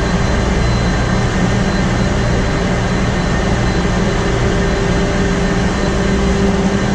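Loud, steady engine-room drone from a ship's Wärtsilä RT-flex82T seven-cylinder low-speed two-stroke diesel main engine running, with a constant hum under it.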